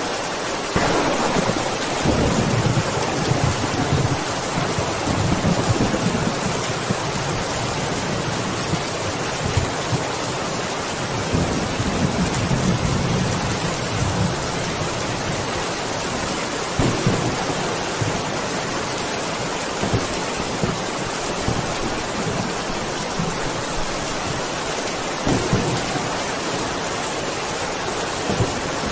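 Heavy rain falling steadily, with a long roll of thunder that starts about a second in and rumbles on for more than ten seconds. Softer rumbles of thunder follow later.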